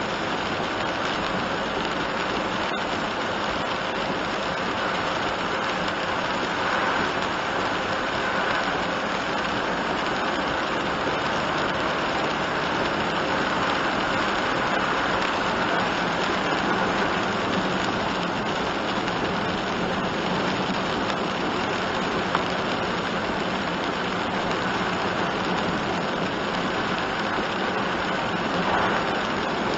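Steady hiss of heavy rain on a moving kei box van's windshield and roof, mixed with tyre noise on the wet road, heard from inside the cabin.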